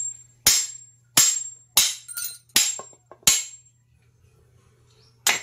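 Sharp metal-on-metal strikes, a tool hitting an engine part, each with a brief high ring: about six blows roughly every two-thirds of a second, a pause, then one more near the end.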